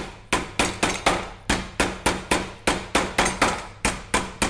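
Fresh lemongrass stalks being pounded flat on a wooden chopping board to bruise them: a steady run of sharp knocks, about three a second.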